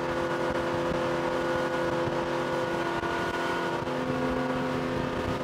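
Mestra 240's 250 hp 4.5-litre petrol engine on an Alpha sterndrive running steadily at full throttle, about 5,200 rpm, a constant hum with several fixed tones over a rush of noise.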